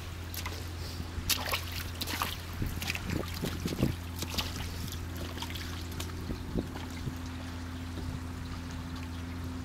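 A boat engine running steadily as a low hum, with water lapping and scattered short clicks over it.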